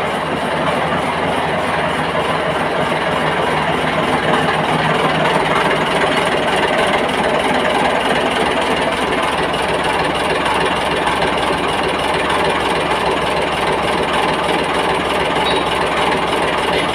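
Marine diesel engine running steadily on a test run after repair.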